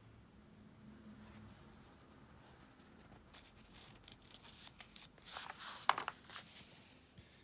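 Paper pages of a picture book being handled and turned: a run of crisp rustles, scrapes and small clicks, loudest about six seconds in as the page flips over.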